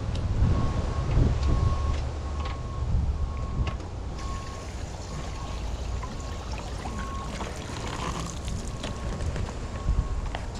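Wind rumbling on the microphone outdoors, stronger in the first few seconds. Behind it are a faint, high beep repeating about every two-thirds of a second and a few light clicks.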